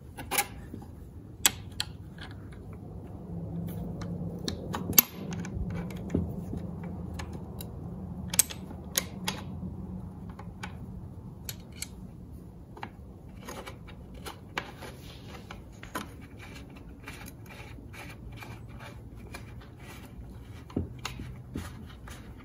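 Scattered light metallic clicks and taps as steel parts are fitted by hand into a Torqueflite 904 transmission case: the heavy-duty band strut and billet band lever being set in place. Sharpest clicks come about 5 and 8 seconds in, over a steady low hum.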